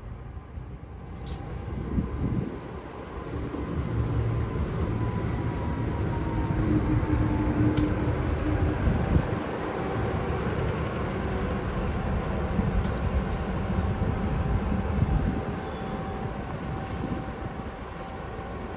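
Aurizon freight train passing: the diesel locomotive and its wagons rumbling along the rails, building up about four seconds in and easing off near the end, with a few sharp clicks.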